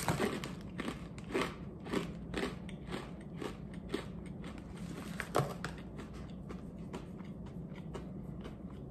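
Crunchy sourdough pretzel bite being chewed, a steady run of crunches about two a second, with a louder crunch about five and a half seconds in.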